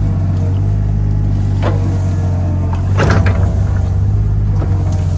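Mini excavator's small Perkins diesel running steadily under work, with two short scraping noises from the machine about a second and a half and three seconds in, the second louder.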